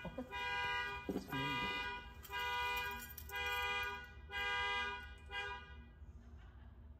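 Car alarm sounding the car's horn in repeated blasts, about one a second, each lasting under a second; the blasts stop about five and a half seconds in.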